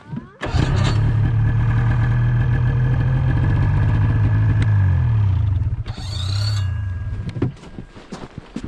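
Polaris snowmobile engine running at a steady throttle. Its pitch drops about five seconds in as the throttle is let off, then it runs at a lower steady note and dies away near the end.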